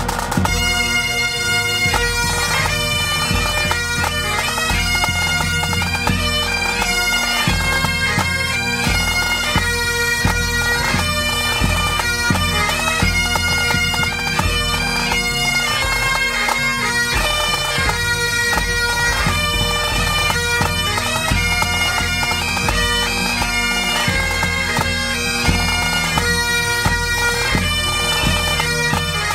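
A pipe band playing: Great Highland bagpipes sounding a melody over their steady drones, with snare and bass drums keeping time.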